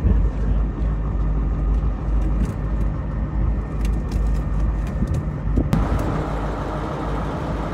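A boat's engine running with a steady low rumble, mixed with wind buffeting the microphone and scattered small knocks; about six seconds in the hiss turns brighter.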